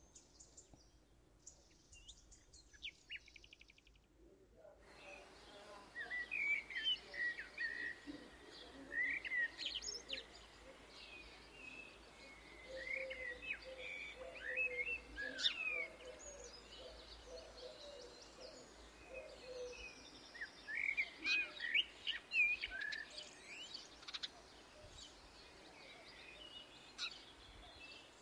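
Small birds chirping, many short sliding chirps coming and going from about five seconds in, with a lower repeated call for a while in the middle.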